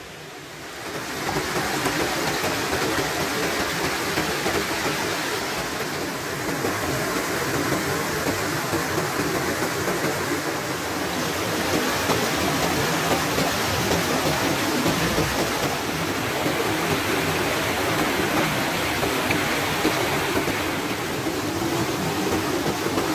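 Stream water pouring over a small concrete weir and churning white below it: a steady rushing and splashing that swells up about a second in and then holds level.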